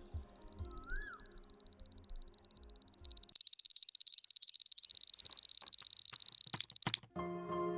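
Alarm clock ringing: a rapid, high-pitched pulsing ring that grows louder about three seconds in, then cuts off suddenly with a click or two as it is switched off, about a second before the end.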